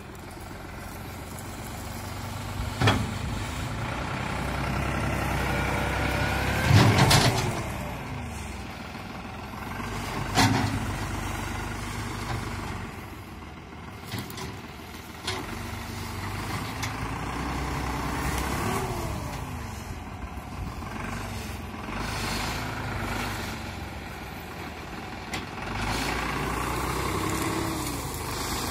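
Farm tractor's diesel engine working under load as its Oğuzyiğit KT-4000 front loader bucket digs into soil and tree roots. The engine pitch rises and falls repeatedly, and sharp knocks come about 3, 7 and 10 seconds in, the one near 7 seconds the loudest.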